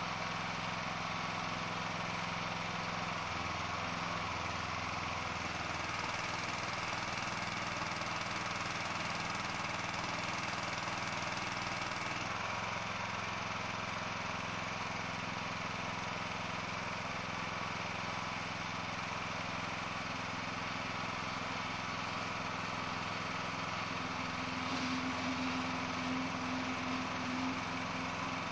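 An engine running steadily, its note shifting slightly about twelve seconds in, with a stronger steady tone coming in near the end.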